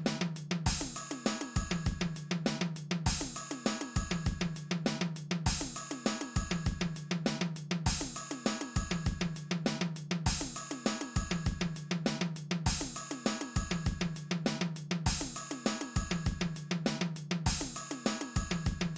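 Background music with a steady drum-kit beat of snare, bass drum and cymbals, looping a short phrase about every two seconds.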